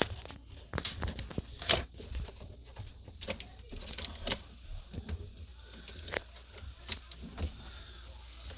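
Irregular light clicks, taps and rustles of hands handling washing-machine parts during a drain-pump inspection, a few sharper knocks among them.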